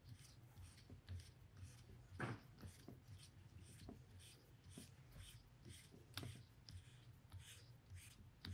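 Faint handling noise as the FX Impact M3 airgun's plenum is twisted and unscrewed by hand from the valve tube: light scraping and small clicks of the parts, with a sharper click about two seconds in and another around six seconds.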